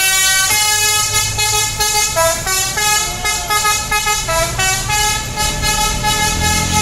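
Bus's multi-tone musical "telolet" horn playing a quick tune of held notes, the pitch jumping every third of a second or so. The tune stops near the end as a low engine rumble comes up.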